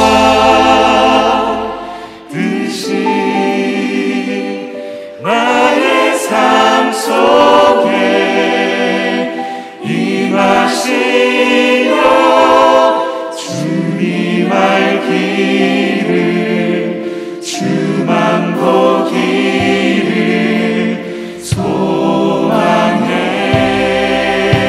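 A worship team sings a Korean contemporary worship song together, voices blended like a small choir over band accompaniment. The deep bass drops away about two seconds in and returns near the end.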